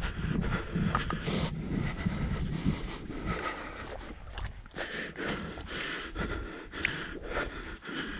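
A hiker breathing hard, with irregular footsteps on a mountain trail.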